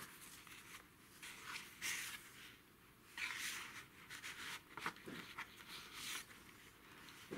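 Faint paper rustling as the pages of a handmade junk journal are turned and handled, with a few soft swishes.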